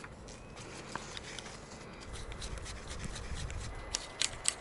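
Faint rubbing and scratching of hands handling garden hose and fittings, then a few sharp clicks near the end as a hose coupling is fitted on a yard hydrant.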